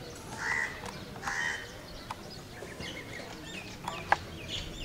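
Birds calling: two short, harsh calls about a second apart, then scattered faint high chirps. A single sharp click sounds near the end.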